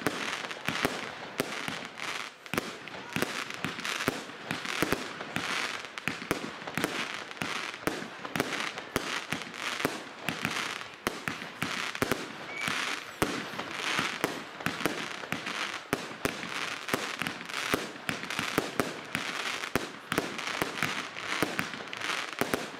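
Heron firework cake firing shot after shot: a fast, uneven run of sharp bangs, several a second, with crackling between them as the stars burst.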